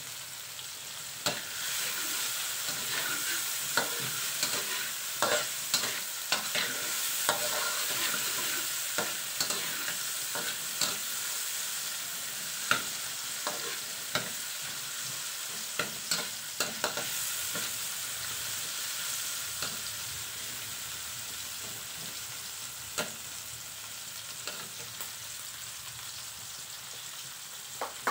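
Chopped garlic and onion sizzling in hot oil in a pan, with a steady hiss, while a spatula stirs them, scraping and clicking against the pan. The clicks come often in the first half and thin out later.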